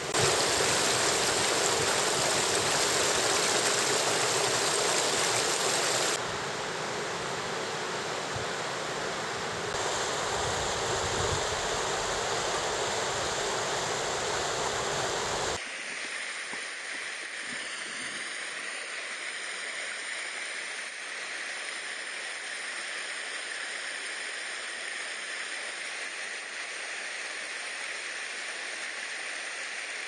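Mountain stream water rushing over rocks, a steady rushing noise. About halfway through it turns quieter as the view moves to a calmer pool.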